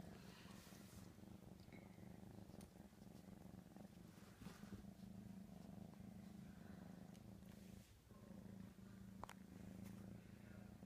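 Siamese kitten purring, a faint steady low purr that dips briefly about eight seconds in, with a single sharp click about nine seconds in.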